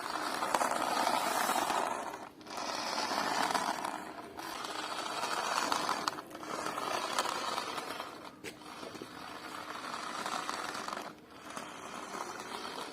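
Small geared DC motor whirring steadily, in several stretches broken by short pauses every two or three seconds.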